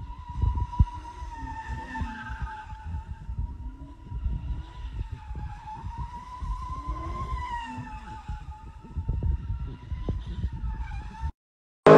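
Car tyres squealing without a break as a car spins donuts in its own smoke: one high squeal whose pitch wavers slowly, over a low rumble. It cuts off near the end.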